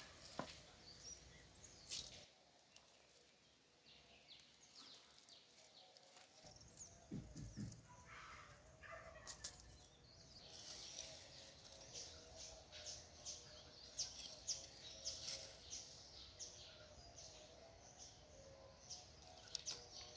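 Quiet outdoor ambience: faint bird chirps, with soft scattered rustles and taps throughout.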